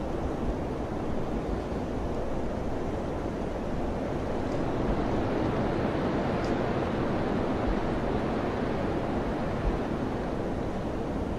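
Mountain wind blowing steadily, an even low rushing noise that swells a little toward the middle.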